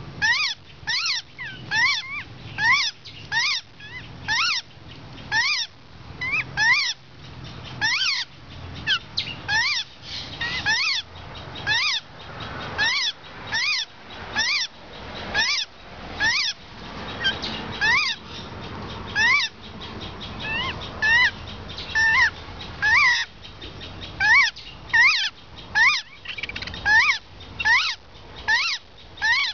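White-crested laughingthrush chicks calling over and over, about two short calls a second, each call rising and then falling in pitch.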